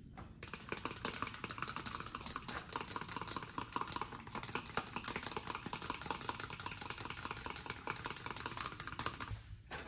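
A metal fork whisks raw eggs in a clear plastic container, making a fast run of rapid clicking against its sides that stops near the end.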